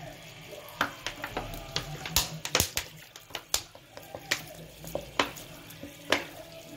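Washing machine loaded with a shaggy rug, running in its wash cycle: irregular sharp clicks and crackles over a low steady hum.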